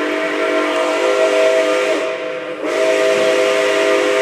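Steam whistle of Nickel Plate Road 2-8-4 Berkshire locomotive No. 765, heard from a passenger car, sounding two long blasts. The whistle's chord of several tones plays over a hiss of steam. The first blast breaks off about two seconds in, and the second starts just under a second later.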